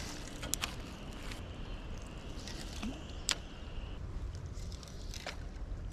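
Steady rushing noise of a fast-flowing, flooded river, with a few light clicks over it.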